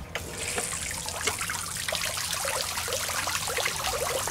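Small submersible pond fountain pump switched on: the spray jet comes on suddenly at the very start, and its water splashes steadily back onto the pond surface in many small drops.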